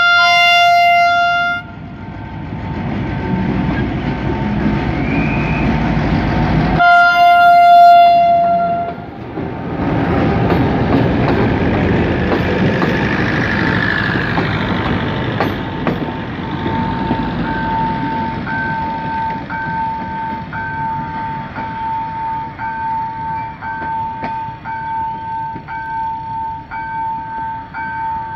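Diesel locomotive J26 319.336 sounds its multi-tone horn twice: a short blast at the start and a longer one about seven seconds in. Its engine rumbles under and between the blasts, and then the relief-train cars pass with a rush of wheel noise. In the second half a level-crossing warning bell rings steadily, a little more than once a second.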